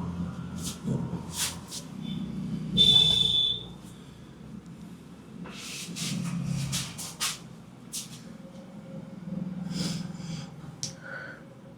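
Hands massaging a head and shoulders: a string of sharp slaps and taps over quieter rubbing. A short high tone sounds about three seconds in.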